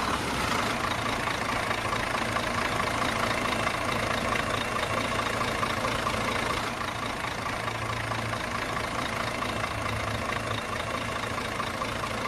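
Engine running steadily at idle, an even rumble with a constant low hum that does not rise or fall.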